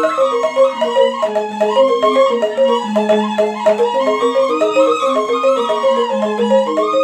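Balinese rindik gamelan in slendro tuning: bamboo rindik struck with rubber-tipped mallets in a rapid repeating pattern over slower low notes, with suling bamboo flutes playing a smooth sustained melody above.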